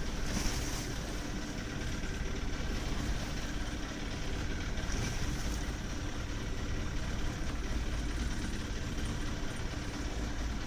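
Fishing boat's engine running at idle, a steady low rumble with a faint hum, with two brief hisses about half a second in and again about five seconds in.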